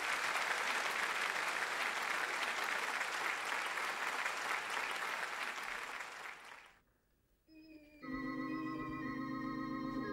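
Audience applauding for about seven seconds, dying away, then after a brief pause an orchestra starts the introduction of a song with held, sustained chords.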